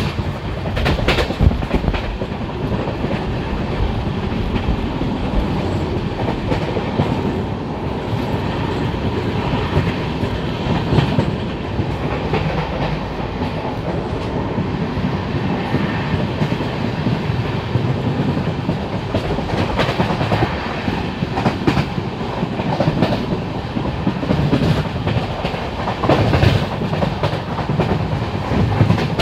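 Express passenger train running at speed, heard from on board, with a steady rumble and scattered clacks of the wheels over the rail joints.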